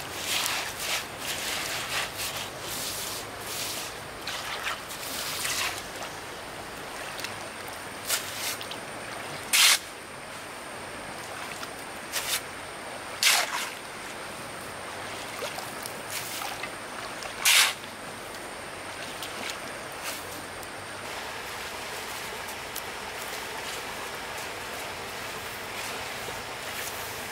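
Stream water running, with wet sloshing and a few sharp sounds in the first seconds. Three loud sharp knocks come about four seconds apart in the middle.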